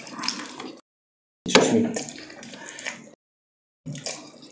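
Close-miked wet eating sounds: chewing and slurping spaghetti and food, with clicky mouth noises. The sound cuts to dead silence twice, about a second in and again past the three-second mark.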